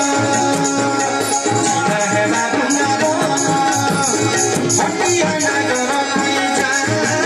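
Live Sambalpuri bhajan music: a harmonium holding sustained reedy chords over a steady drum beat and jingling hand percussion.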